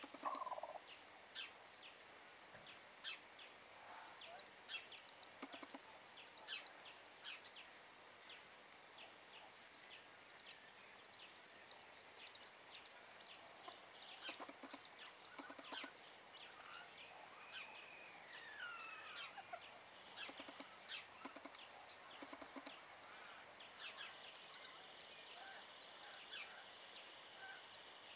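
Barbu d'Uccle bantam hen dust bathing: quiet scratchy rustles and flicks of dry soil and feathers, with soft low clucks now and then and a few higher chirps about halfway through.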